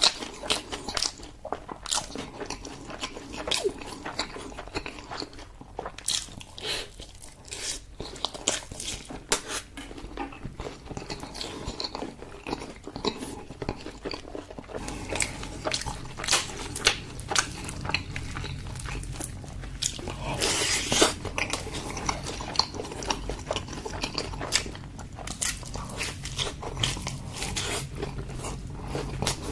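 A person chewing and biting food close to the microphone: irregular wet clicks and smacks of the mouth throughout, with a louder crunchy bite a little past two-thirds of the way in.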